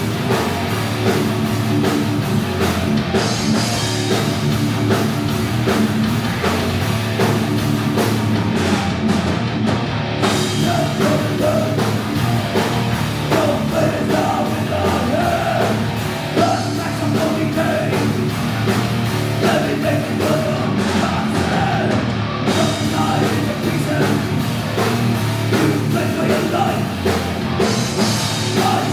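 A thrash metal band playing live at full volume: distorted electric guitars, bass and a drum kit pounding out a fast, steady rhythm, with wavering vocal or lead lines over the second half.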